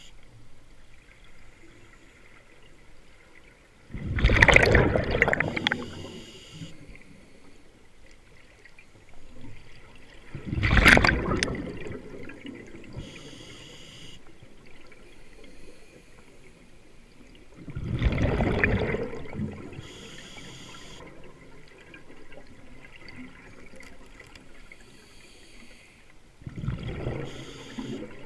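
Scuba diver breathing through a regulator underwater: four loud rushes of exhaled bubbles about every seven seconds, with a faint hiss of the regulator on each inhalation between them.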